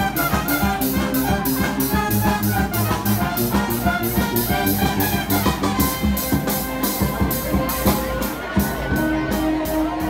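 Street brass band with trumpets, trombones and a bass horn playing a lively tune over a steady drum beat.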